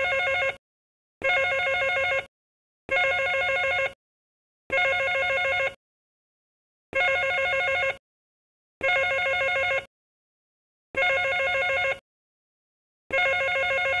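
Telephone bell ringing in repeated rings, each about a second long, roughly one every two seconds, with silence between. About eight rings.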